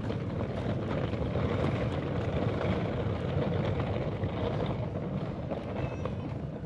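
A steady low rumble with no distinct events standing out.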